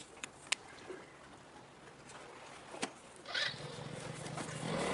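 A few sharp clicks over a faint hiss. About three seconds in, a low steady engine hum sets in and grows louder.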